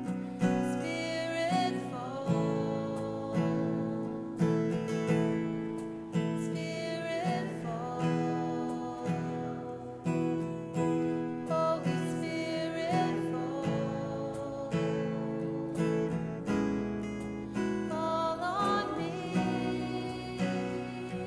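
Slow worship song: an acoustic guitar strummed about once a second, with a voice singing a sustained, sliding melody over it.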